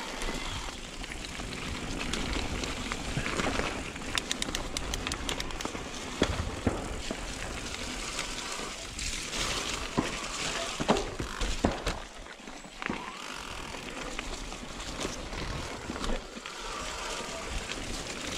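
Mountain bike riding a dirt trail: tyre noise with frequent knocks and rattles from the bike, and a run of rapid ticking about four seconds in.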